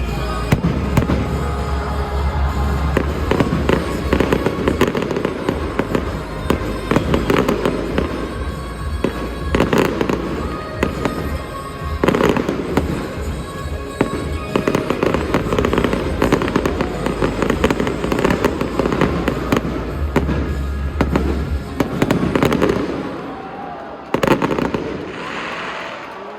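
Fireworks going off in a dense, continuous barrage of bangs and crackles over music. It thins out and quietens in the last few seconds.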